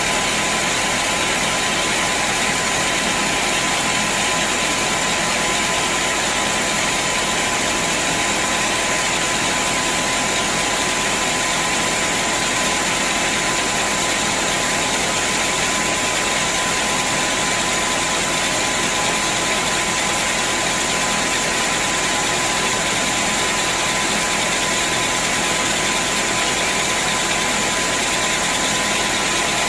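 Sawmill machinery running steadily, a constant noise with a steady whine over it and no change in speed or load.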